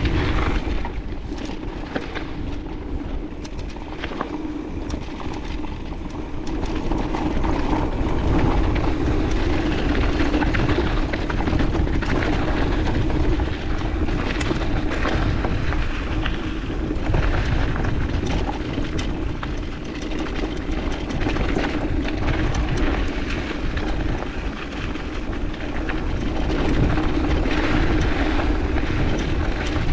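Mountain bike descending a dirt trail, heard from a chest-mounted camera: wind rushing over the microphone, tyres rolling over the ground, and frequent rattles and knocks over bumps. A steady buzz runs underneath, and the whole sound swells and eases as the speed changes.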